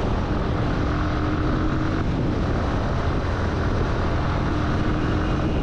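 Yamaha sport motorcycle running steadily at cruising speed on the open road, its engine note mixed with heavy wind rush over the rider's microphone.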